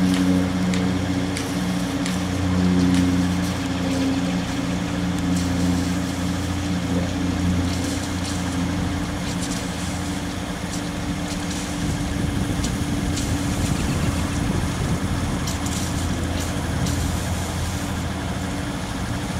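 Cessna Caravan single-engine turboprop droning overhead, a steady low propeller hum. About twelve seconds in the even hum breaks up into a rougher, noisier rumble.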